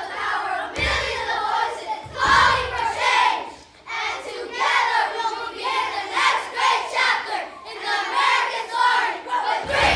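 A group of children's voices chanting together in unison, with short low thuds about a second in and again about two seconds in.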